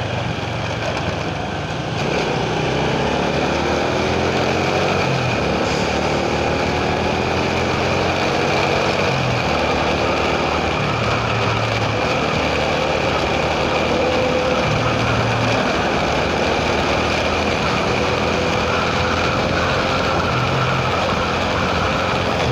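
Motor vehicle running on the road, a steady engine and road noise with the engine pitch slowly rising and falling as it changes speed.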